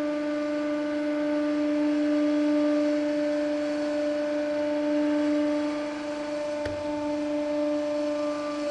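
Hydraulic press running at full speed and high pressure, its pump giving a steady, even hum. A single click comes about two-thirds of the way through.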